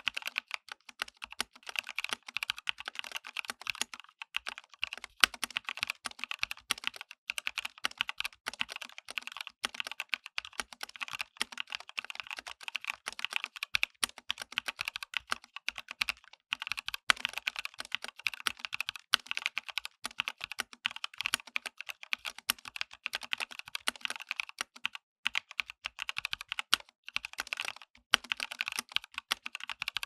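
Epomaker NT68 mechanical keyboard with Skyloong Chocolate Red linear switches being typed on fast: a dense, continuous stream of keystroke clacks, with a few brief pauses.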